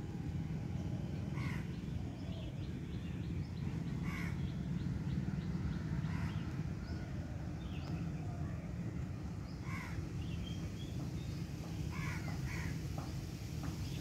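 Several short, harsh, caw-like bird calls every few seconds over a steady low rumble.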